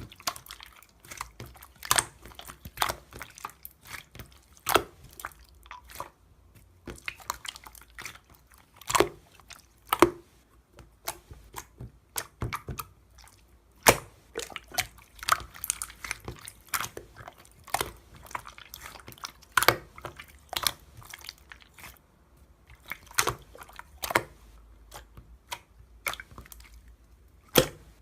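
Slime being squeezed and poked by hand, making irregular wet clicks and pops with short quiet gaps between them.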